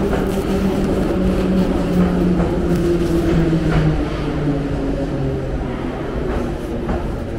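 Metro train running into the station and slowing to a stop, its motors humming in a tone that falls in steps as it brakes, over the rumble of the train.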